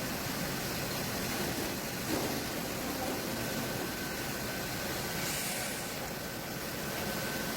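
Sawmill machinery running with a steady mechanical din, a thin high whine coming in about two seconds in, and a short hiss about five seconds in.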